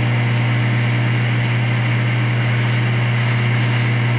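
Steady low mains-type hum with a hiss behind it, unchanging throughout, from a running appliance or motor.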